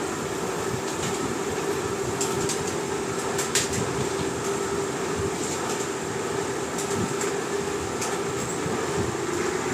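Milling machine running while drilling a retainer: a steady machine hum with a held tone, broken by a few sharp metallic ticks.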